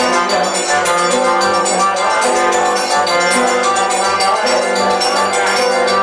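Live forró band playing a dance tune: accordion, guitar, zabumba drum and hand percussion with a steady beat.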